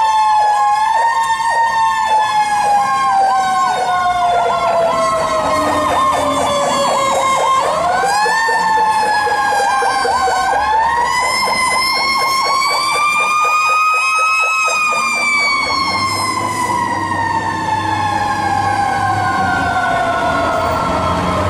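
Fire truck's mechanical Q siren winding up quickly and coasting down slowly in long wails, over a second siren yelping rapidly. A low engine rumble comes in near the end.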